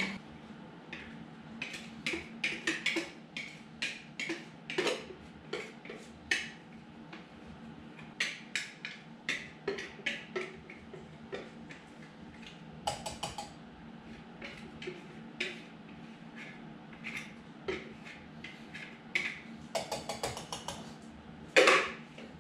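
Utensil scraping and tapping against a mixing bowl as batter is emptied into a baking pan: many short scrapes and knocks, with a brief clatter near the end and one louder knock just before it ends.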